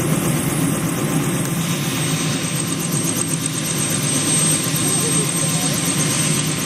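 Helicopter running on the ground with its main rotor turning: a steady engine sound with a thin high whine, and an even rotor beat that comes through clearly from about two seconds in.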